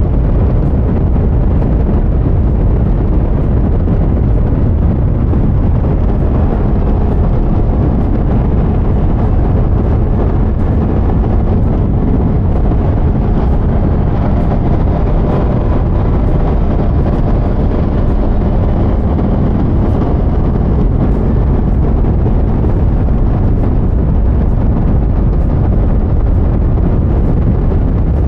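Steady heavy wind rush on the microphone of a Ducati Multistrada V4S ridden at speed. The motorcycle's V4 engine shows faintly under it as a hum that comes up through the middle.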